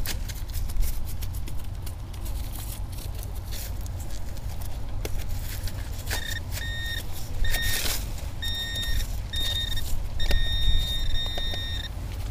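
Minelab Equinox 600 metal detector giving a high target tone: a string of short beeps begins about halfway through and ends in a longer held tone near the end. Before the beeps come scattered scrapes and clicks of digging, over a steady low rumble.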